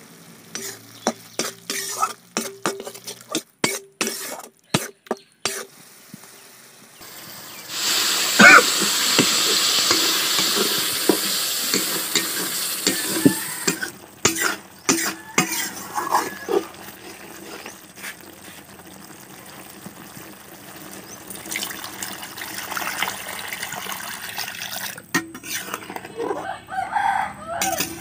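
A metal spatula knocking and scraping in an aluminium kadai of frying curry masala with tomatoes. About eight seconds in, water hitting the hot masala sets off a loud sizzling hiss that lasts about five seconds, followed by more stirring clatter as the thinned gravy cooks.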